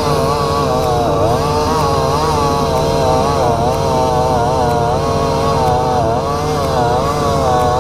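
Chainsaw cutting through a tree trunk, its pitch dipping and recovering about once a second as the chain loads up in the cut. Under it runs the steady hum of a New Holland skid steer's diesel engine.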